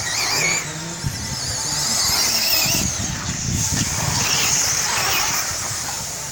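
Electric 4WD radio-controlled off-road cars racing: the high whine of their motors and drivetrains rises and falls as they accelerate and pass.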